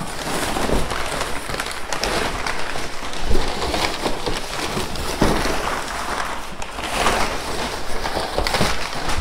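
Crumpled kraft packing paper crackling and rustling as it is pulled out of a cardboard shipping box and pushed around inside it.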